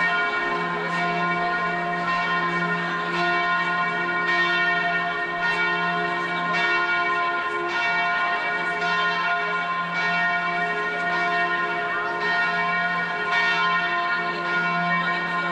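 Church bells ringing: a steady run of strikes about once a second, each stroke's tones ringing on into the next.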